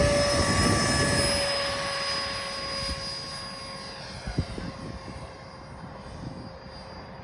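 Electric ducted fan of a 90 mm EDF model F-4 Phantom jet running at full power on takeoff, a steady high whine over a rushing hiss that fades as the model climbs away. A brief click about four seconds in.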